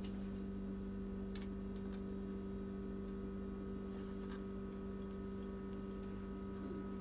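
Steady low hum with a few faint ticks over it; the hum cuts off suddenly at the end.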